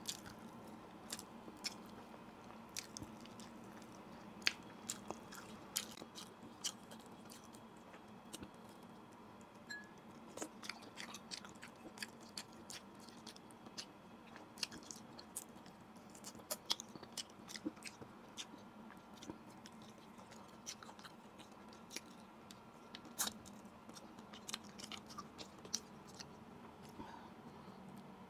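Close-up mouth sounds of someone eating grilled fish by hand: chewing and wet lip smacks, with many short, sharp, irregular clicks and crackles as fingers pull the flesh apart.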